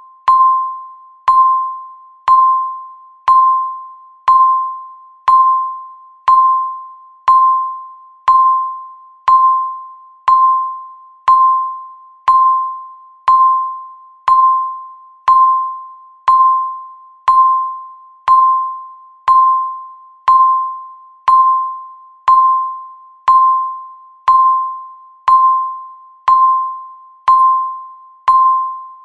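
Countdown timer tick sound, once every second. Each tick is a sharp click followed by a ringing tone that fades away.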